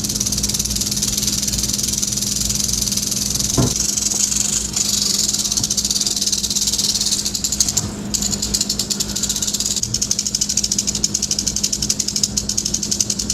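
Western diamondback rattlesnake shaking its tail rattle in a continuous high buzz, a defensive warning. The buzz falters briefly about five and eight seconds in, and a steady low hum runs underneath.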